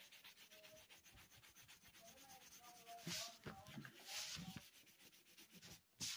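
Faint rubbing strokes of coloring on paper, with two slightly louder swishes about three and four seconds in.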